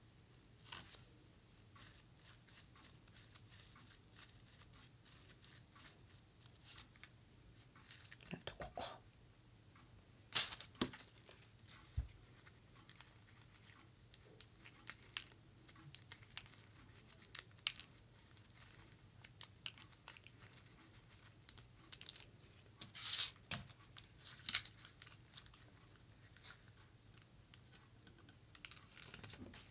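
Dry, papery preserved rose petals crinkling and rustling as they are handled, pulled open and pressed into place. There are scattered small clicks and taps, and louder rustling spells about ten seconds in and again a little past twenty seconds.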